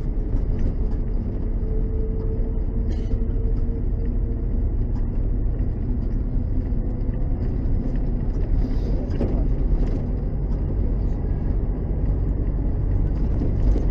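LAZ-699R bus's ZIL-375 V8 petrol engine running with a steady low rumble, with a faint held whine for a few seconds near the start.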